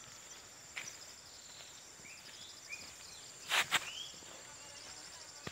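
Rural riverside ambience: a steady high insect drone with a few short bird chirps and faint footsteps, broken a little past halfway by two sharp noise bursts in quick succession, the loudest sounds here.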